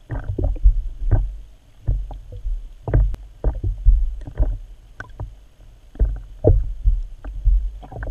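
Muffled underwater sound picked up by a GoPro in its waterproof housing beneath the lake surface: irregular low thuds and rumbles of water moving against the camera, with scattered short clicks and knocks.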